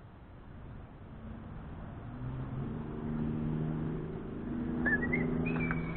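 A motor vehicle's engine hum, steady in pitch, comes in about two seconds in and grows louder. Near the end a high, thin, wavering tone joins it.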